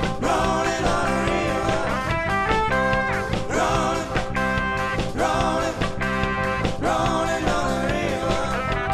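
A live rock band playing: electric guitar, bass guitar, keyboard and drums, over a steady beat, with a melody that bends in pitch.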